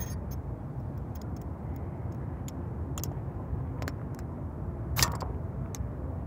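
A neck knife scraped along a ferrocerium rod to throw sparks into an alcohol stove to light it. About eight short scrapes, the strongest about five seconds in, over a steady low rumble of wind on the microphone.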